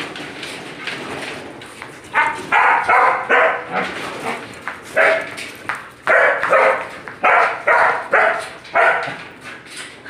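A dog barking, about ten short barks, many in quick pairs, from about two seconds in. The barking comes from a female dog fending off another dog's mating attempts.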